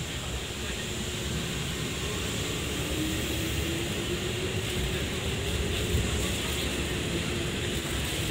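Nishitetsu electric commuter train pulling in alongside the platform: a steady rumble of wheels on rail, with a faint hum from about three seconds in.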